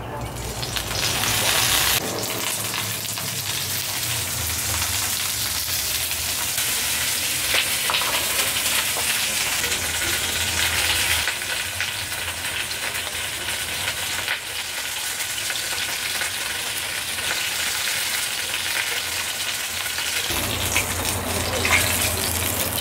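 Flour-coated chicken pieces frying in hot oil in a wide pan: a steady sizzle with small crackling pops.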